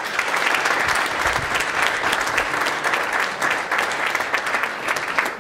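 An audience applauding: many hands clapping, starting suddenly and easing off just before the end.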